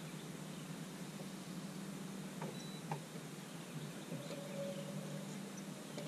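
An angler reels in a hooked bass on a bent rod: a faint steady low hum, a couple of light clicks near the middle, and a short steady whine about four seconds in.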